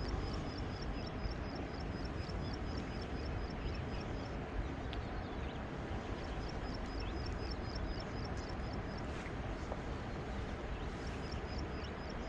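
Steady low outdoor rumble with a high, clipped chirp repeated about four times a second that falls silent twice for about two seconds.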